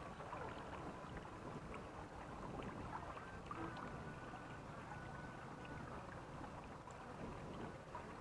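Water lapping and trickling against a sailing catamaran's hulls as it moves slowly, with many small splashes and ticks throughout.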